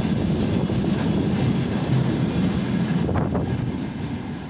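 Slow freight train of gas tank cars rolling past close by: a steady rumble of wheels on rail with clicks over the rail joints. It fades as the last car goes by near the end.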